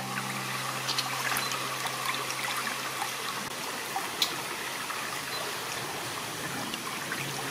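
Shallow stream water trickling steadily over rock.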